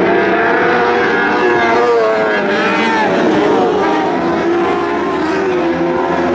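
Several lightning sprint cars' engines racing together, their pitches rising and falling as the cars accelerate and back off around the track.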